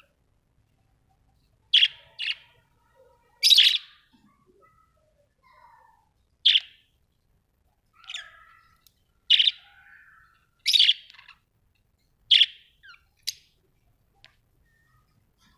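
Budgerigars calling: a string of about nine short, loud chirps, one every second or so, with soft chatter in the gaps between them.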